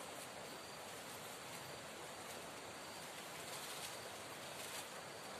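Steady rush of river water flowing, with a few faint high chirps over it.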